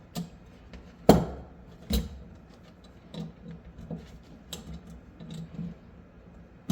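Metal parts of a partly disassembled SKS rifle being handled: a sharp knock about a second in, another just before two seconds, and scattered lighter clicks and taps.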